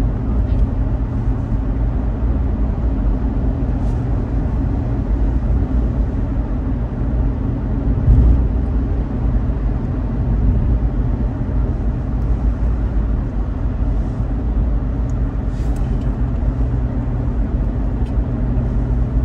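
Steady low rumble of outdoor background noise, with a brief louder swell about eight seconds in.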